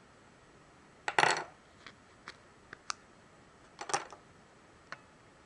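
Hard plastic clicking and clattering as a clear plastic microSD card case is handled and the card taken out. Two louder clattering bursts, about a second in and near four seconds, with a few light ticks between and one more shortly after.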